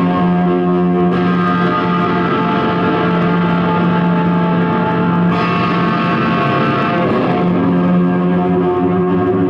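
Loud noise music played live: a dense, unbroken drone of many held tones over a thick wash of noise, brightening about five seconds in.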